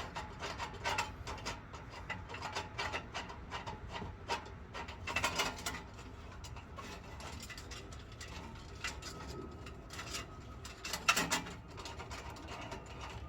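Small metal clicks, knocks and scraping as the clamp hardware of a catalytic converter lock is hand-threaded and fitted around the exhaust pipe. The louder knocks come about five and eleven seconds in.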